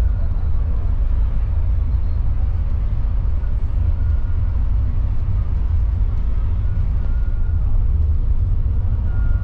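Steady low rumble of a Mercedes-Benz OC500RF coach under way, engine and road noise running at an even level.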